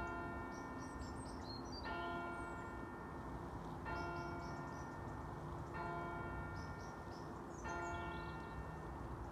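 A church bell striking the hour for six o'clock: five slow strikes about two seconds apart, each ringing on until the next. Birds chirp faintly as they go to roost.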